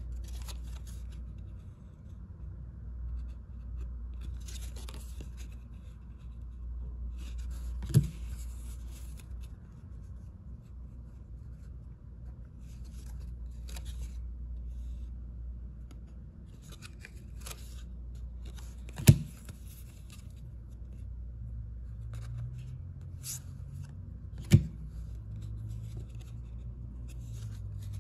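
2022 Panini Prestige football cards being handled one at a time, each card sliding off the stack with a short papery swish. Three sharp taps, about 8, 19 and 24 seconds in, are the loudest sounds, over a low steady hum.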